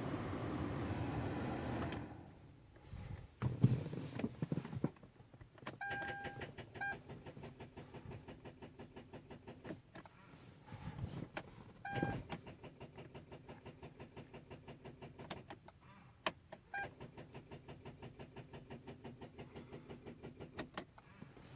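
Three start attempts on a 2011 Hyundai Genesis Coupe with a dead battery. Each brings a short two-note dash chime, then about four seconds of rapid, even clicking at four to five a second: relays chattering because the battery is flat and cannot crank the engine.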